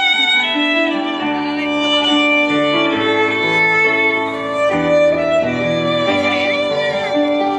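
Instrumental music playing: a melody of held notes over a lower accompaniment, the notes changing every second or so.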